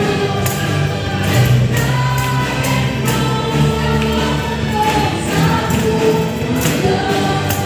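A congregation singing a praise and worship song together over music, with a steady beat of sharp hits about twice a second.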